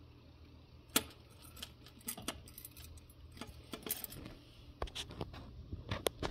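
Metal costume jewelry clinking and jingling as a necklace and its hang tag are handled: a run of small sharp clicks, the sharpest about a second in.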